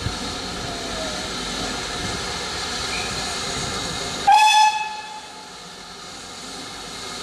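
Steam whistle of BR Standard Class 4MT tank locomotive No. 80072, one short blast about four seconds in, over a steady background hiss.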